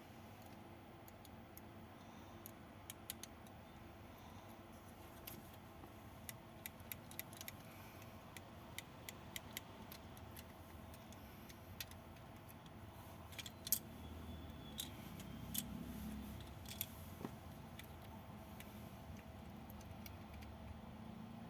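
Faint, scattered light clicks and rattles of plastic Lego pieces being handled, with a sharper click about two-thirds of the way through.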